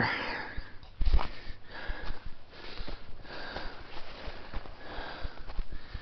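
A hiker breathing hard in repeated sniffing breaths as he starts up a steep slope. His footsteps knock and crunch on loose, gravelly soil, with a sharp thump about a second in.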